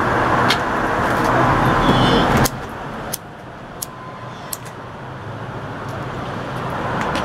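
Street traffic noise: a loud rush of passing-car engine and tyre noise that drops away suddenly about two and a half seconds in, then another vehicle approaching and growing louder toward the end.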